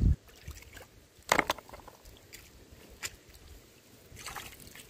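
Water splashing lightly a few times, the clearest splash just over a second in.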